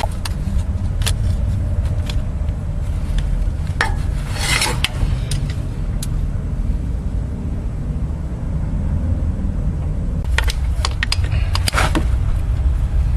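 Hand tools scraping and clicking on the vehicle speed sensor's retaining pin in the engine bay, as the pin is worked loose. There is one longer scrape about four seconds in and a flurry of clicks near the end, over a steady low rumble.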